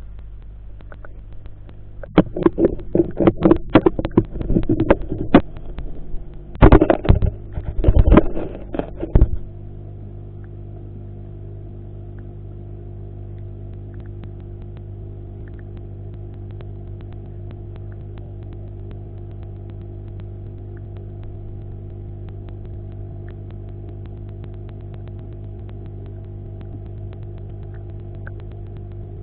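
Eheim aquarium surface skimmer running: loud, irregular sputtering bursts for about seven seconds, then it settles into a steady hum.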